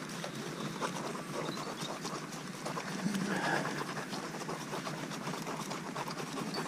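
Hands mixing damp white breadcrumb in a plastic bait tub to make a groundbait: a steady run of small crackles and rustles.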